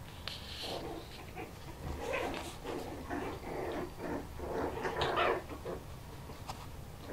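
Four-week-old Bichon Frise puppies play-fighting, giving many short, high-pitched yelps and whimpers one after another.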